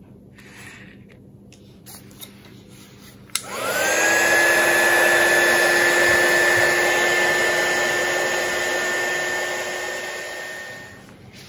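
Electric heat gun switched on with a click about three seconds in, its fan whirring up to a steady whine over a rush of hot air as it shrinks heat-shrink tubing over a coax-and-braid joint. The sound fades and stops near the end.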